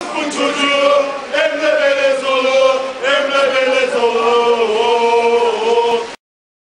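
Group of male football supporters chanting a song together in long held notes. The chanting cuts off suddenly near the end.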